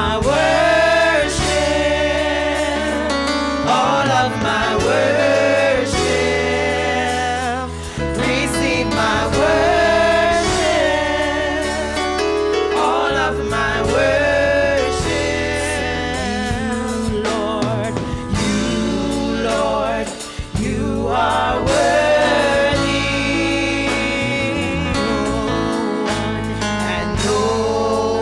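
Four women singing a gospel praise and worship song together into microphones, with a live band of drums and keyboard accompanying.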